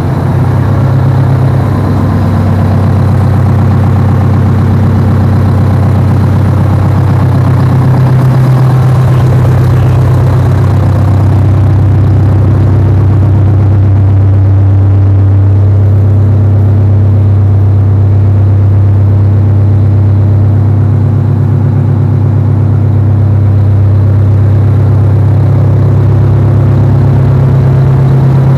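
Detroit Diesel 8V92 two-stroke V8 diesel in a 1979 Kenworth W900A idling steadily while still cold, just after a cold start.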